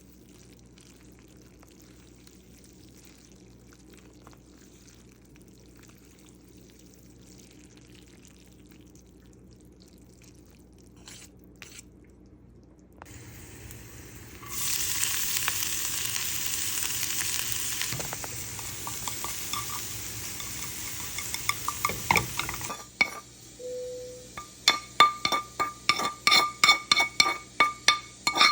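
Kitchen sounds: a faint steady background, then about eight seconds of loud steady hissing, like food sizzling. After a short beep, a spoon clinks rhythmically against a glass, about two ringing strikes a second.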